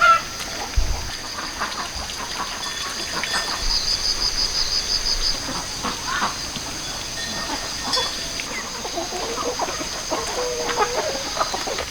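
Chickens clucking with scattered short calls, over a steady high-pitched buzz. A rapid trill sounds briefly a few seconds in.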